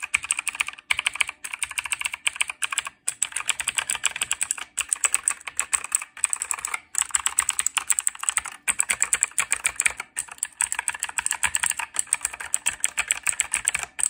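Typing on a Redragon K568 mechanical keyboard with clicky blue switches: a fast, continuous run of sharp key clicks with a few brief pauses.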